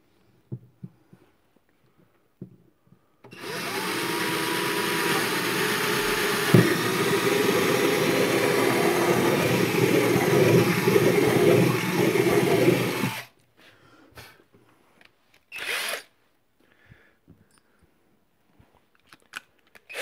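Cordless drill boring a single 10 mm hole through the back wall of a refrigerator compartment: the drill starts about three seconds in and runs steadily for about ten seconds, with one sharp crack partway through, then stops. One short burst follows a couple of seconds later.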